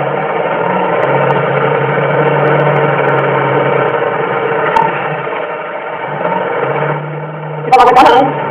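Chainsaw running steadily at high speed while cutting coconut lumber. Near the end comes a short cluster of sharp knocks.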